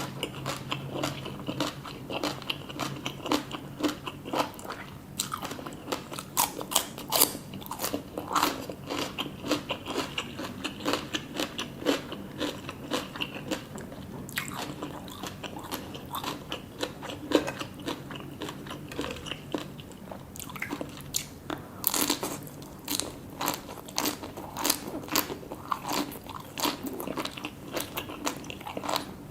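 Close-miked eating: irregular crunchy bites and wet chewing of seafood and salad, with no talking.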